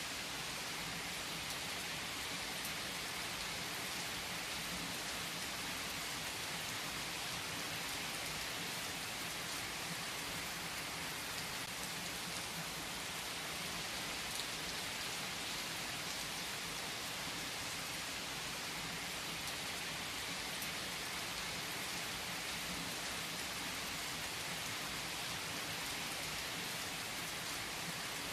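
Steady rain falling and pattering on surfaces, an even hiss with the odd distinct drop.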